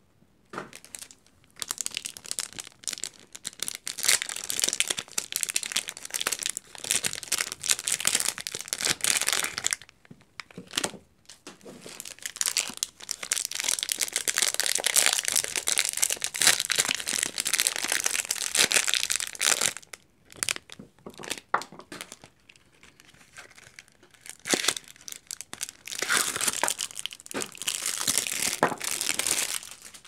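A bar of soap's wrapper being crinkled and torn open by hand: dense crackling and ripping in three long stretches, with short lulls about 10 and 20 seconds in.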